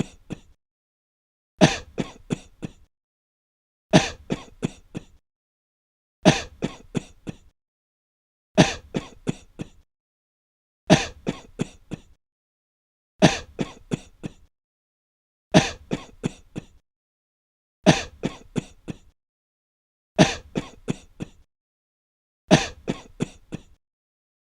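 A person coughing in breathless fits: each fit is one hard cough followed by four or five quicker, weaker coughs. The identical fit repeats a little over every two seconds, about ten times.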